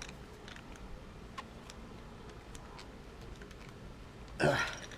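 Faint, scattered light clicks and taps of a metal crutch tube and its adjustment clips being handled, with a brief voice sound near the end.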